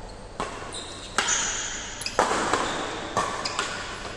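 Badminton rackets striking a shuttlecock during a doubles rally: several sharp hits about a second apart, echoing in a large hall.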